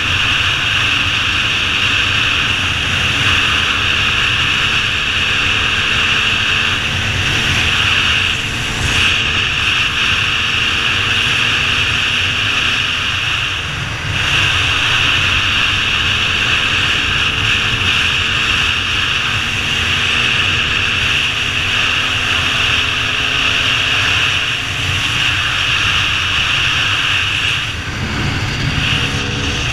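KTM dirt bike engine running under way on gravel, its pitch rising and falling with the throttle and easing off briefly a few times. Heavy wind rush on the helmet-mounted microphone.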